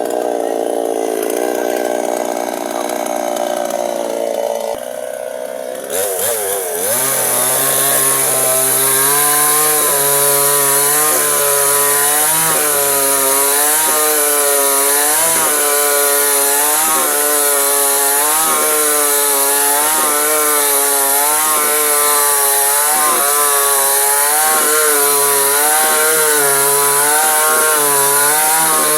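Chainsaw engine running, revving up about six seconds in and then cutting wood, its pitch rising and dipping about once a second as the chain bites into the cut.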